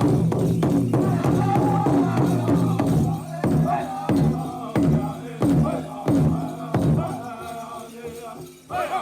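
Powwow drum group singing to a big drum struck in unison. About three seconds in, the drumming changes to strong single beats about two-thirds of a second apart under the singing, and it dies away near the end as the song closes.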